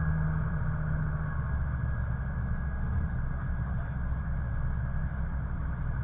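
Mercedes-Benz OM617 five-cylinder turbodiesel of a 1982 W123 300D running while the car drives, heard from inside the cabin with road noise. It has freshly replaced injector nozzles that leave an even diesel clatter rather than a single-cylinder rattle. A deep engine tone eases off about a second in.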